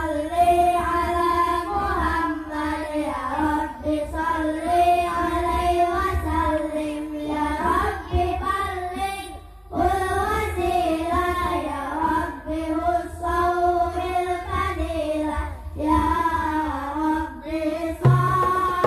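Boys singing a sholawat devotional song, the melody almost unaccompanied, with a short break about ten seconds in. Near the end hadroh hand drums, a darbuka and rebana frame drums, come in with a beat.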